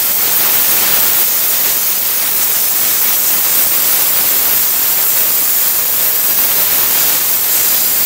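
Tenya CUT 60C plasma cutter running, a loud, steady hiss.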